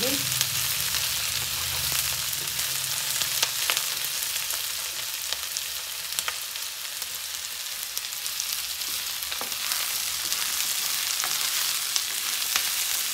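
Mushrooms, onion and garlic sizzling as they fry in hot oil in a pan, with a steady hiss and scattered clicks of stirring.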